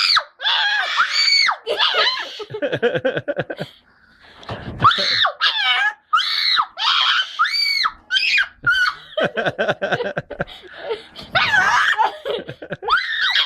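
A parrot and a boy screaming back and forth: a rapid series of loud, high-pitched arching screeches, broken by bursts of laughter.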